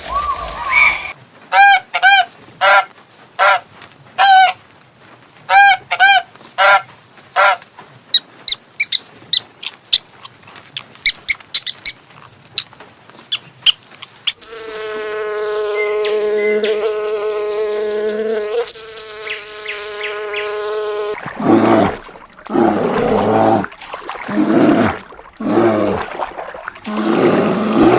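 A series of different animal calls in succession. First come repeated short pitched calls, then quick chirps and clicks, then a steady buzz lasting about six seconds, then a few lower calls near the end.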